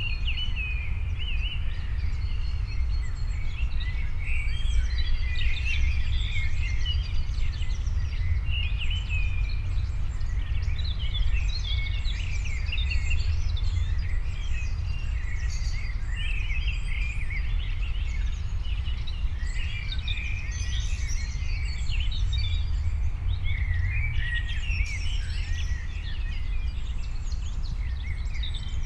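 Several songbirds chirping and singing, their short calls overlapping continuously, over a steady low rumble of outdoor background noise.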